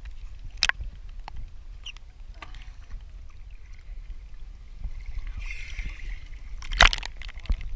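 Seawater sloshing and lapping around a camera held at the waterline, with a steady low rumble and a few sharp splashes, the loudest about seven seconds in.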